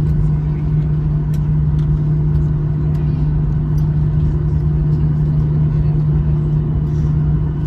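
Steady drone of a Boeing 737-800's engines and rushing air heard inside the passenger cabin, with a strong constant low hum and no break or thump.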